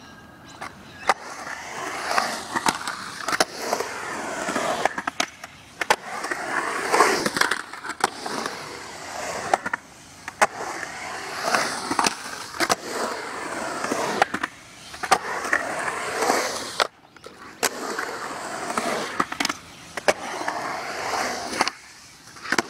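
Skateboard wheels rolling on concrete, with many sharp clacks of the board and trucks striking the concrete and its edges as tricks are popped and landed. It comes in several runs with short quiet breaks between them.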